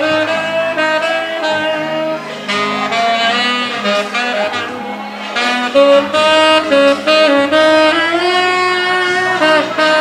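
Music: a saxophone playing a melody of held notes over a bass line and accompaniment.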